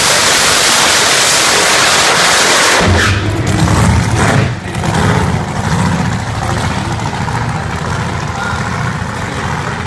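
Boosted V8 engine of an Isuzu D-Max drag truck at full throttle, extremely loud, as it launches with its tyres smoking. After about three seconds the sound turns deeper and then fades as the truck pulls away down the strip.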